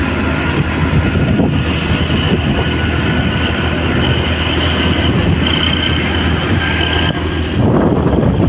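Motorcycle riding along a road at speed: steady engine drone mixed with road and wind noise, with wind buffeting the microphone more heavily near the end.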